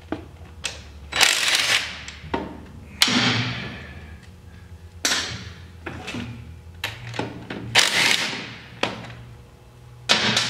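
Hand tools and metal parts clanking and scraping while the rear bolts of an ATV front brake caliper are worked loose: a run of short metallic scrapes every second or two, some loud, over a faint low hum.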